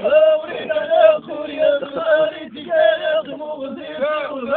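A man singing a poem in a chanting style, holding long notes that bend and waver in pitch, with short breaths between phrases.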